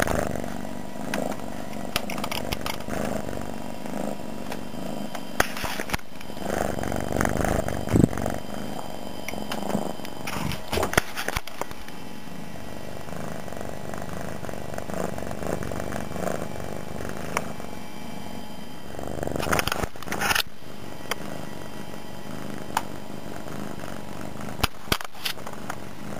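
Domestic cat purring loudly and steadily close to the microphone, with a few brief clicks and bumps along the way.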